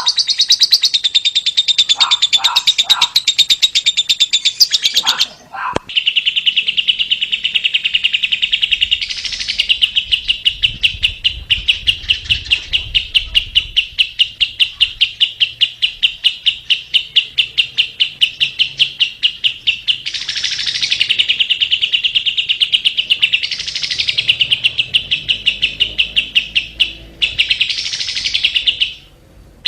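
Lovebird ngekek song: a long, continuous, rapid chattering trill. It breaks off briefly about five seconds in and again near the end before starting up again.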